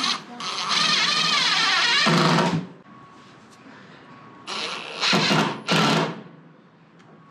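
Cordless drill run in bursts, driving into the wooden trailer deck: one long run of about two seconds with its pitch wavering, then two short bursts near the end.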